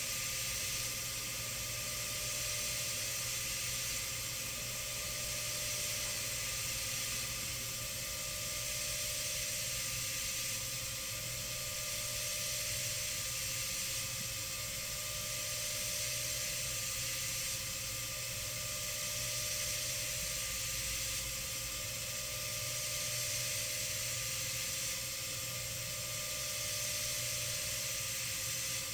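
CNC milling spindle running steadily with a small diamond-coated end mill cutting hardened carbide, under a steady hiss of air-oil mist blast and a faint spindle whine. The level swells and dips every few seconds as the tool moves through its passes.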